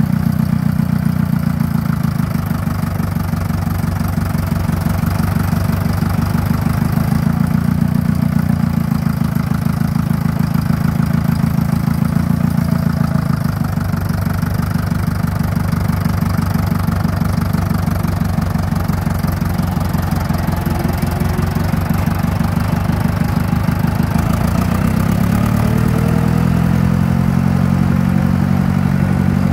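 1962 Fordson Super Major tractor's four-cylinder diesel engine running steadily while the tractor is driven, a low, rapid pulse of firing strokes; the engine speed picks up about 25 seconds in.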